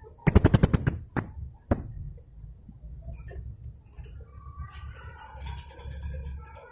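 Blue-crowned hanging parrot (serindit) calling: a rapid rattling burst of sharp, high staccato notes just after the start, two single high notes shortly after, then softer, varied twittering in the second half. A low steady hum runs underneath.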